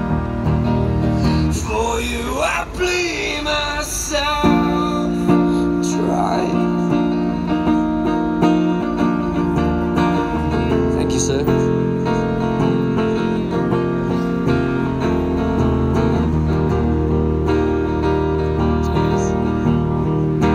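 Busker strumming chords on an acoustic guitar and singing.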